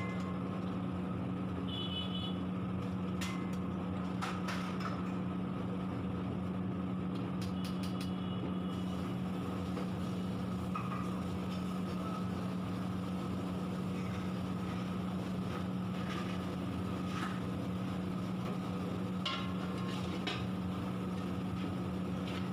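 Steady low mechanical hum of commercial kitchen machinery running without change, with a few faint light clicks and clinks scattered through it.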